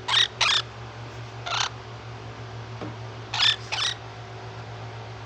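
A pet animal giving five short harsh calls: two quickly at the start, one about a second and a half in, and two more a little over three seconds in, over a steady low hum.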